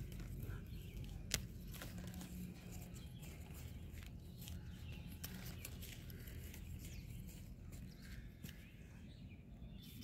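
Hand weeding tool scraping and picking at dry soil among onion plants. Faint scattered clicks and scrapes, with one sharp tick a little over a second in, over a low rumble.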